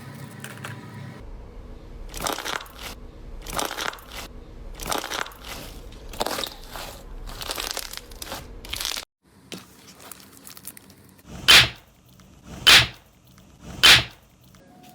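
Crunchy slime-type material being pressed and squeezed, crackling in repeated crunches about once a second. After a brief break, three louder, sharp crunches come about a second apart.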